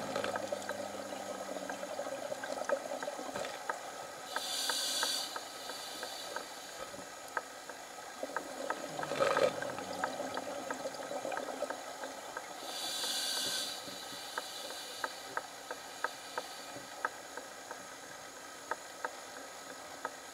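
Scuba diver breathing through a regulator underwater. There are two hissing inhalations, about four and thirteen seconds in, and a burst of exhaled bubbles about nine seconds in, with faint scattered clicks between them.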